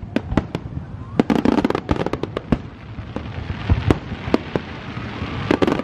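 Aerial fireworks going off in an irregular string of sharp bangs and crackles, thickest from about a second in and again near the end.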